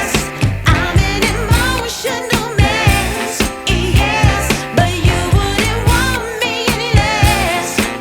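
Background pop-soul music with a singer over a steady beat.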